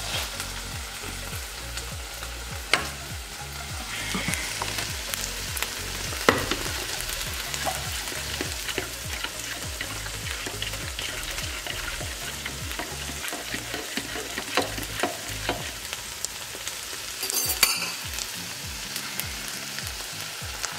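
Chicken strips, mushrooms and bacon frying in a stainless steel pan on low heat, a steady sizzle. A metal spoon clicks against a plastic measuring jug a few times as a sauce mix and milk are stirred.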